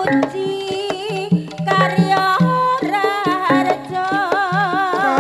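Javanese jaranan band music: hand-drum (kendang) strokes in a steady pattern under several wavering melodic lines.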